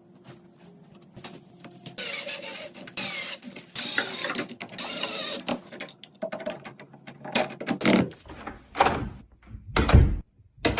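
Door lock being worked on by hand: small metallic clicks and scraping, with a stretch of rasping from about two seconds to five and a half. Then come a few separate knocks and thuds, the loudest about ten seconds in.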